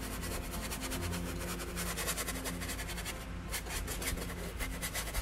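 Nearly dry flat brush scrubbing acrylic paint onto a canvas in quick, repeated back-and-forth strokes: scumbling.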